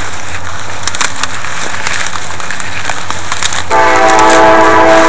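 Dry soybean plants rustling and crackling as someone pushes through them on foot. Almost four seconds in, a horn sounds one steady, loud blast that holds for nearly two seconds.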